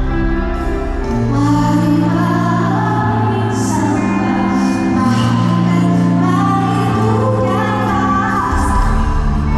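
Live band music with a female lead singer holding long sung notes.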